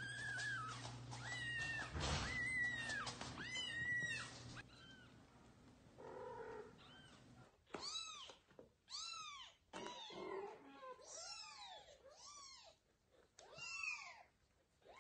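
Young kittens meowing over and over in short rising-and-falling cries. The first few cries are high-pitched; after a pause midway the cries are lower and come about one a second.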